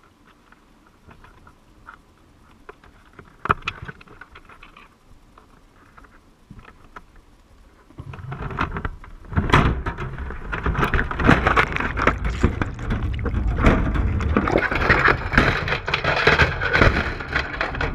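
Wire crab trap being hauled up through the water, heard from a camera inside it: a few faint clicks and knocks at first, then about eight seconds in a sudden loud rush of churning water with rattling and knocking that lasts as the trap comes up and out of the water.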